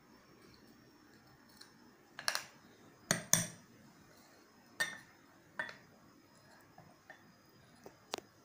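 A metal spoon clinking against a glass mixing bowl as cake batter is spooned and poured out, about six short clinks spread unevenly, the loudest pair about three seconds in.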